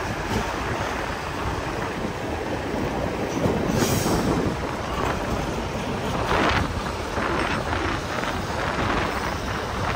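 Steady rumble of heavy diesel machinery working, with a few louder rattles a little past the middle.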